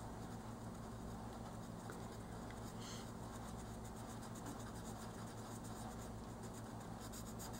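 Faint scratching of an oil-based colored pencil shading on coloring-book paper in short repeated strokes, with a quick run of strokes near the end, over a low steady hum.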